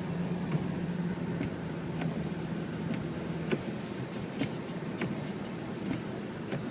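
Car engine hum and tyre noise heard from inside the cabin while driving on a snowy road. The steady engine drone drops away about three and a half seconds in, leaving road noise and a few faint clicks.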